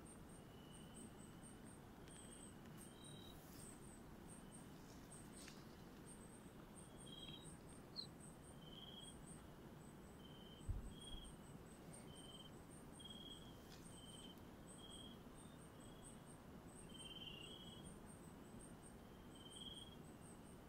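Faint chorus of night insects: a very high chirp repeating in quick, even pairs, and a lower short chirp about once a second. A single dull thump comes about halfway through.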